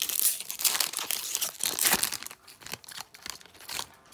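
A hockey trading-card pack's wrapper being torn open and crinkled by hand, a dense run of crackles that thins out near the end.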